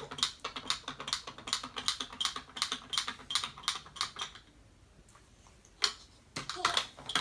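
Typing on a computer keyboard: a quick run of key clicks that stops about four seconds in, then one more click. A young child's voice sounds briefly near the end.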